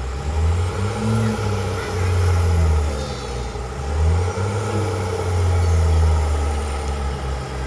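Heavy diesel engine of construction machinery running under load, its low drone rising and falling in several surges.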